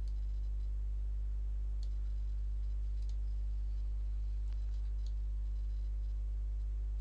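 Steady low electrical hum with its overtones, with a few faint computer mouse clicks scattered through it.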